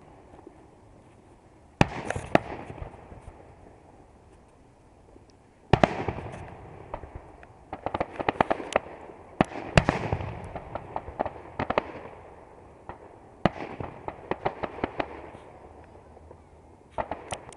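Aerial fireworks bursting: a sharp bang about every four seconds, five in all, each followed by a quick run of many small pops as the stars break and crackle.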